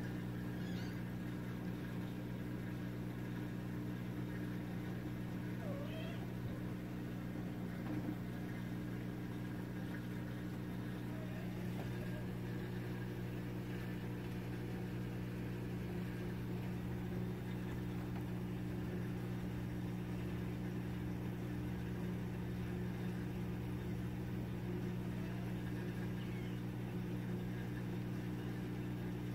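A steady electrical hum throughout, with a few faint, short kitten mews or chirps scattered through it.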